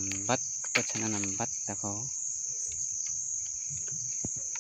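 Insects chirring in a steady high-pitched drone. A person's voice makes a few short sounds in the first two seconds.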